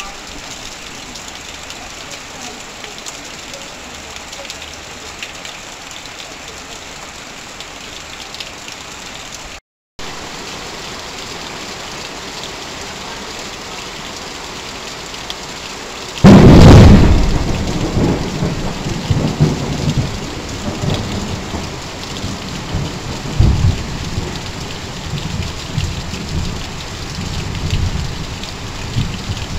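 Heavy rain pelting corrugated metal roofing and sheeting, with water streaming off a roof edge, as a steady hiss. About ten seconds in the sound cuts out for a moment. About sixteen seconds in a sudden loud thunderclap breaks in, then rolls on in uneven rumbles under the rain.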